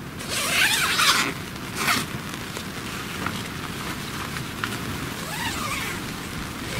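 Zipper on a USMC Combat II tent's door pulled open in a long sweep lasting about a second, a short second pull just after, and a fainter pull near the end, over a steady hiss of rain.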